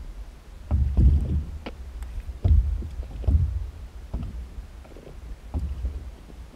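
Paddle splashes and water slapping and gurgling against a Walker Bay Airis inflatable stand-up paddleboard as it is paddled, in irregular splashes every second or so, over a steady low rumble.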